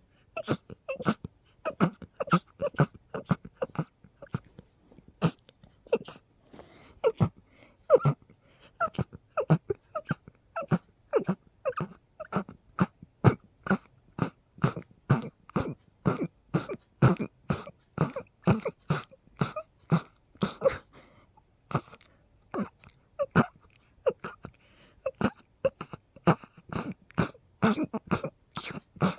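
A person sneezing over and over in a fit: short, sharp sneezes about two to three a second, pausing briefly twice, brought on by a cold combined with allergies.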